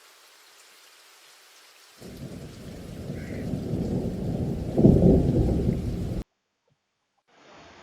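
Light rain hissing faintly, then about two seconds in a low rumble of thunder starts suddenly, builds to its loudest near five seconds, and cuts off abruptly about six seconds in.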